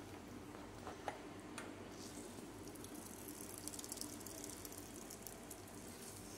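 Faint wet crackling and clicking of finely chopped cabbage and carrot being squeezed by hand to press out the water they have released, with a few sharper clicks early and a fine crackle in the middle. A low steady hum sits underneath.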